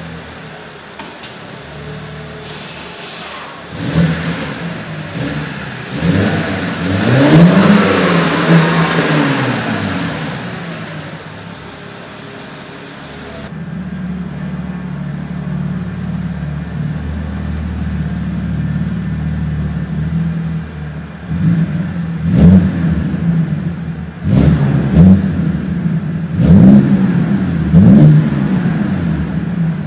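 BMW Z4 E89 sDrive23i's 2.5-litre straight-six engine and exhaust, idling and revved. A long rev about four seconds in climbs and falls back to idle. After an abrupt change in the sound about halfway through, the engine idles and then takes several short throttle blips near the end.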